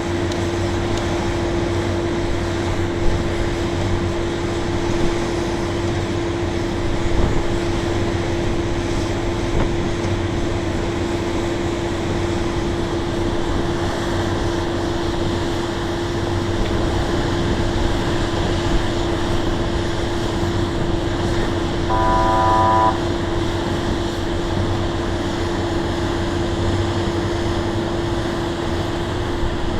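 Heavy drilling or concrete-pumping machinery running steadily with a constant whine and low hum. About 22 seconds in, a horn gives one short toot.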